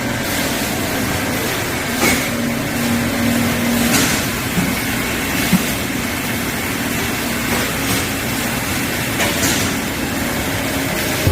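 Bean sprout bulk weighing and bagging machine running with a steady mechanical noise and a low hum. A few short, sharp noises stand out above it at intervals of about two seconds.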